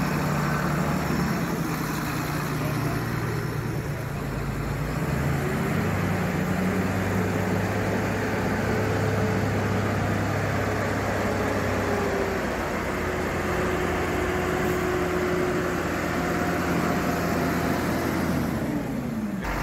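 Diesel engines of large modern tractors, a blue New Holland and then a JCB Fastrac 2140, driving slowly past one after another, with a steady engine drone and a thin whine that falls away shortly before the end.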